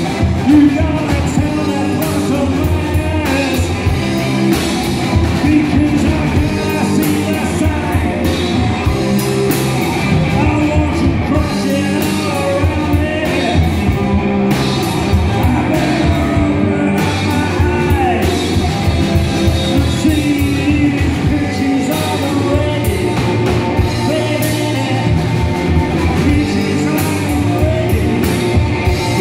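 Live rock band playing loudly: electric guitar, bass guitar and drum kit, with a man singing into a microphone.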